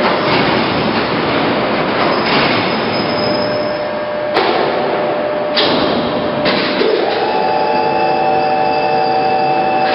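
Heavy-duty lathe running, a loud steady rushing noise that shifts abruptly a few times; from about seven seconds in, a steady whine of several tones rides over it.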